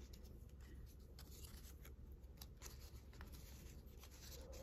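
Faint paper handling: a scatter of soft ticks and rustles as pieces of ripped-up paper are moved and laid in place, over a low steady room hum.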